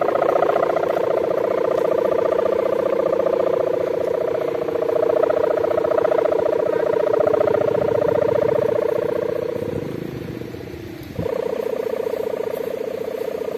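Sendaren kite hummer on a flying kite droning steadily in the wind, a deep buzzing hum of the bulldozer-like kind. It weakens and dips about ten seconds in, then comes back suddenly a second later.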